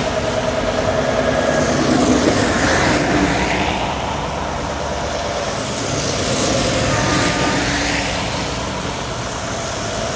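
Heavy lorries driving past one after another: the diesel engine and tyres of a Scania R580 tractor unit going by, then a Volvo FH coming past near the end. The engine and road noise swell and fade as each truck passes.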